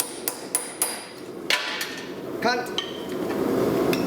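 Hammer blows on red-hot steel on an anvil, about three strikes a second, each with a short metallic ring; the hammering stops about a second in.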